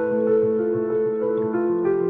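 Background music of slow, held notes over a low sustained tone.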